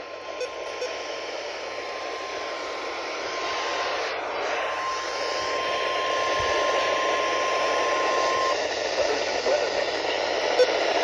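NOAA Weather Radio's 1050 Hz warning alarm tone, one steady tone that signals a warning about to be broadcast. It grows stronger about halfway through and cuts off about eight and a half seconds in. It is heard through loud radio static from weak reception, and the hiss is louder than the tone.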